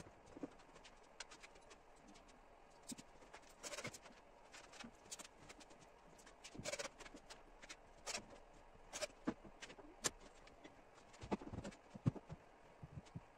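Faint, irregular clicks and knocks from hands working inside a recliner chair's metal reclining mechanism, scattered every second or so.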